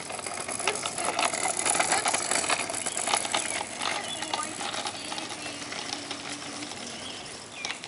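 Kick scooter's small wheels rolling over asphalt, with a dense, continuous rattle and clicking.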